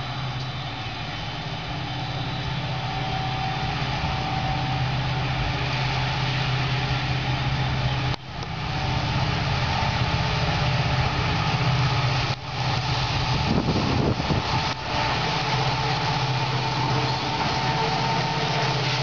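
WDP4 diesel-electric locomotive's two-stroke V16 engine running as it approaches. A steady low drone grows gradually louder.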